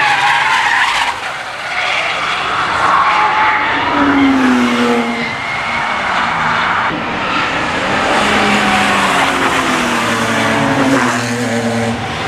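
Cars being driven hard past the camera, their engine notes rising and falling, with tyres squealing and skidding.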